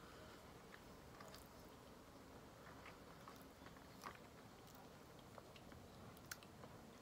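Faint chewing of food, with a few soft, short mouth clicks scattered through, the clearest about four seconds in.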